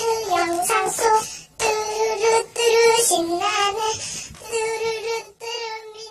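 A child singing in a high voice, holding long notes in short phrases with brief breaks between them.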